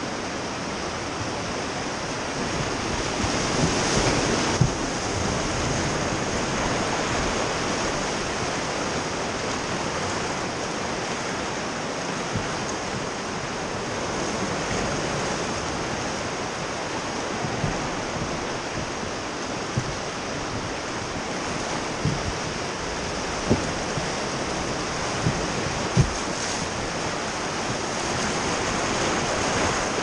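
Rogue River whitewater rushing and churning around a raft, a steady hiss of fast, turbulent water. Several short thumps stand out above it, mostly in the second half.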